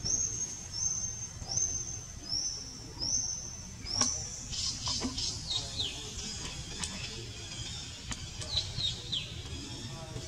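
Birds chirping: a string of short, high rising notes repeated about every three-quarters of a second, then from about four seconds in a few sharp clicks and quick falling chirps.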